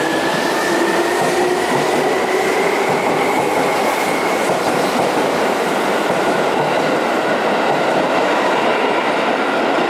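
Seibu 3000 series electric train running, its traction motors whining with a slowly rising pitch over steady wheel-on-rail noise as it picks up speed.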